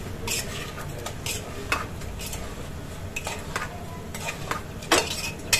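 Metal spoon stirring cauliflower and peas in an aluminium pressure cooker, scraping the pot with irregular clinks of spoon on metal.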